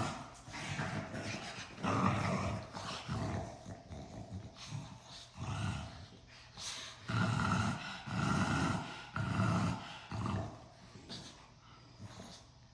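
Pugs play-fighting: repeated short, rough growls and snorting breaths in bursts, tapering off near the end.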